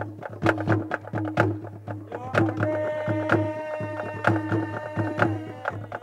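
Drum-led music: a steady beat of about two strokes a second over a low steady tone, with a held melodic line coming in about two seconds in and fading near the end.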